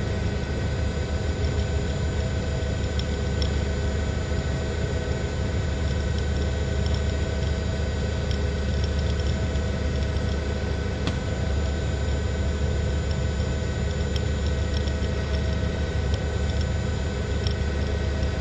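Steady drone of a news helicopter's engine and rotor: a dense hum of several fixed tones with a few faint scattered ticks.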